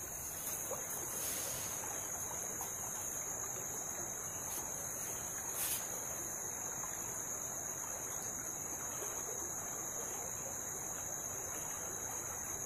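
Insects droning on one steady high-pitched note, over the soft rush of a small shallow stream.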